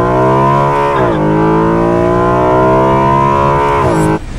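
BMW E93 M3's tuned 4.0-litre S65 V8 with an aftermarket full exhaust system, pulling hard under acceleration: the engine note climbs, drops sharply at an upshift about a second in, then climbs steadily again for nearly three seconds before falling away and cutting off near the end.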